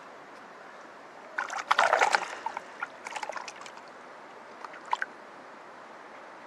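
Steady rush of a mountain stream, with splashing and sloshing in the water. The splashing comes about a second and a half in (the loudest part), again around three seconds, and briefly near five seconds.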